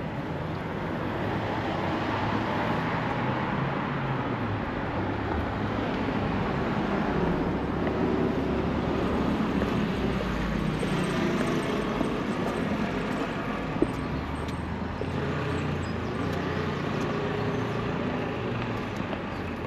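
Street traffic: motor vehicle engines running close by over a steady road rumble, their low tone shifting as they move. A single sharp click about two-thirds of the way through.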